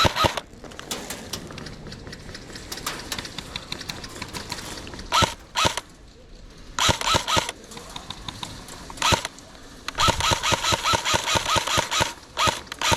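Airsoft guns firing: scattered single shots and short strings of sharp clicks, then a rapid burst of about eight shots a second lasting roughly two and a half seconds near the end.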